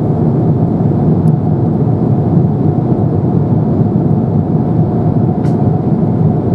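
Steady cabin noise of a JAL Airbus A350-900 in flight, heard from a window seat: airflow over the fuselage and its Rolls-Royce Trent XWB engines, mostly low-pitched. A couple of faint ticks come through, about a second in and again about five seconds in.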